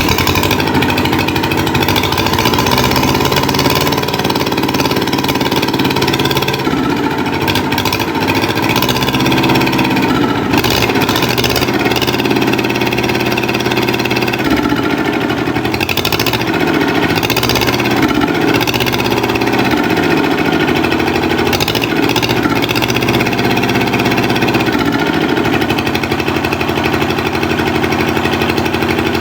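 Rebuilt tractor engine running steadily, its speed rising and falling a few times.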